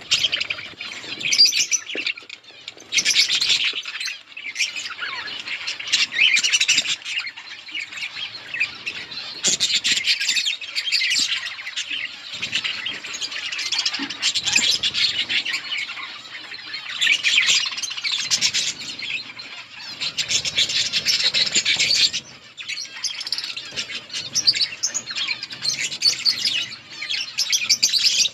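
A flock of budgerigars (budgies) chattering and chirping together in a continuous warble, swelling and easing in loudness.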